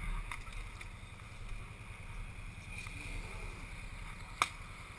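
ATV engine idling with a low, steady, pulsing rumble. A single sharp click comes near the end.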